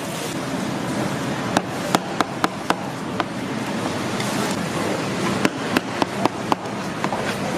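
Metal knife blade knocking and tapping on a plastic cutting board while spreading and cutting fish paste: a quick run of sharp knocks about one and a half seconds in and another around five and a half seconds in, over a steady background hiss.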